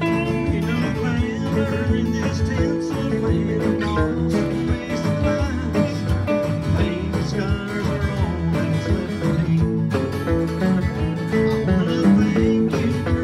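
Acoustic and electric guitars playing a country-style tune together: acoustic guitars strumming the rhythm while an electric guitar picks a lead line with bent notes.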